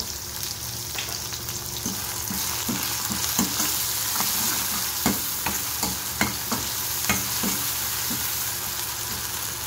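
Chopped onion, garlic, green chillies and tomato sizzling in ghee in a kadhai during a tadka, stirred with a steel ladle that knocks and scrapes against the pan about a dozen times at an uneven pace.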